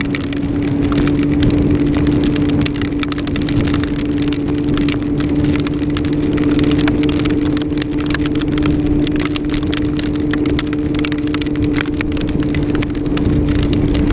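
Yamaha R6 inline-four engine running at a steady pitch under way, with a low rumble of wind and road noise and a dense patter of small sharp ticks from hail hitting the helmet and camera.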